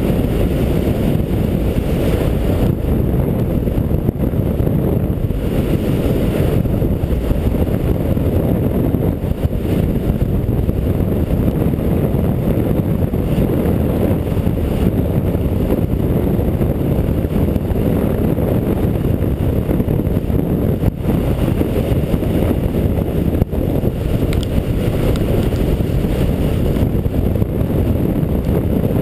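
Wind buffeting a GoPro camera's microphone as a skier runs downhill, a steady low rumble.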